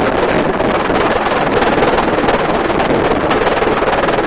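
Helicopter in flight heard from the open cabin: steady engine and rotor noise with heavy wind on the microphone.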